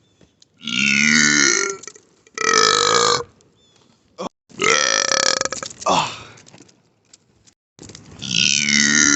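Men belching: three long burps of about a second each, then a fourth starting near the end and carrying on.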